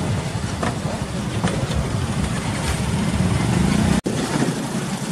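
Narrow-gauge train coaches rolling past close by: a steady low rumble of wheels on track with a few faint clicks. It cuts off abruptly about four seconds in, and a lighter running noise follows.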